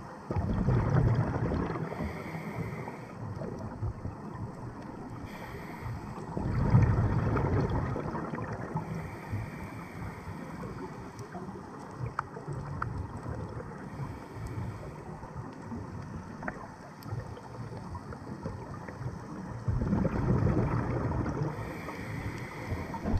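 Scuba regulator exhaust bubbles heard underwater: three bubbling bursts of about two seconds each, one near the start, one about six seconds in and one near the end, over a steady underwater hiss with a few faint clicks between.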